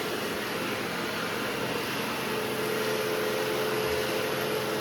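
Robot vacuum cleaners, a Roomba j7 and a Deebot 920, running while cleaning: a steady whirring hum with a steady motor whine.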